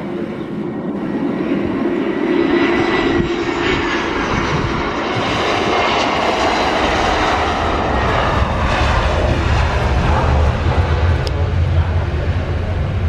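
Airbus A320 jet airliner's engines, loud, as it touches down and rolls along the runway. A high whine falls in pitch over the first few seconds, and a deep low rumble builds in the second half.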